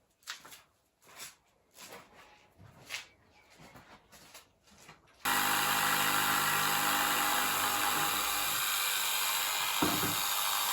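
A few scattered light taps and knocks, then about five seconds in an electric power tool starts abruptly and runs steadily at full speed, with one short thump near the end.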